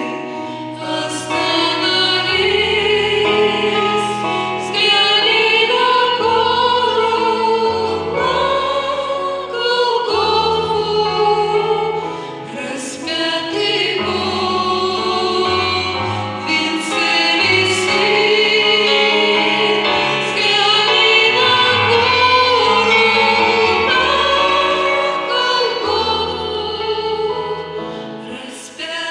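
Church choir singing a slow worship song over held low accompanying notes, the voices wavering with vibrato.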